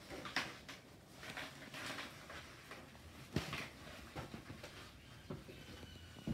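Scattered light clicks and knocks at irregular intervals, one sharper knock about halfway through. A thin high tone comes in near the end.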